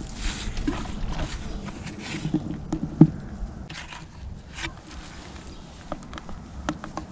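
Footsteps and rustling in dry leaves and reed stalks, with scattered light clicks and one sharper knock about three seconds in.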